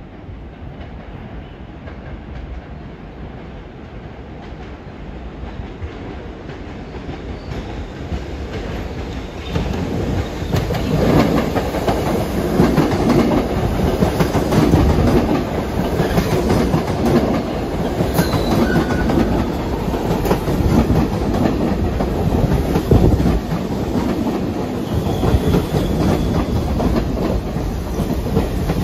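New York City subway train approaching, growing louder over about the first ten seconds, then running past steadily with wheels clicking over the rail joints.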